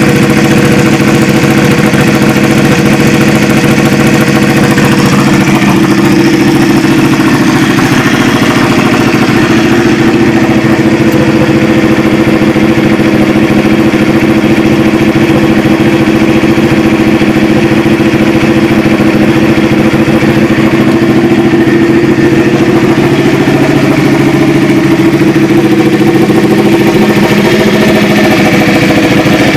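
Ducati Panigale 1199's Superquadro V-twin engine idling steadily in neutral through an Austin Racing exhaust, loud and even in pitch throughout.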